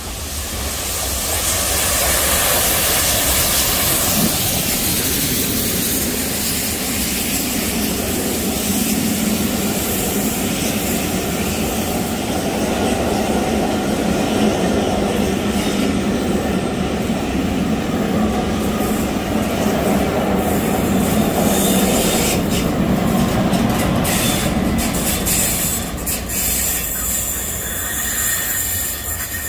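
LMS Jubilee class steam locomotive and its train of coaches passing through at speed: a loud steady rumble and clatter of wheels on the rails that builds in the first couple of seconds and fades near the end.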